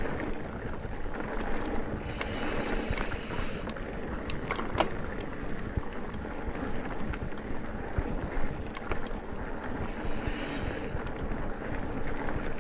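Trek Top Fuel mountain bike riding dirt singletrack: steady rolling tyre and trail rumble with wind on the microphone and frequent small rattles and clicks from the bike. Two short stretches of brighter hiss come about two and ten seconds in.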